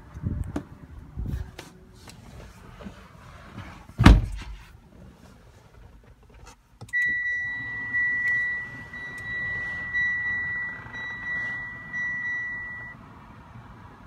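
A car door thuds shut about four seconds in. Then the 2018 Mitsubishi Outlander PHEV's dashboard chime beeps about once a second for some six seconds as the car is switched on.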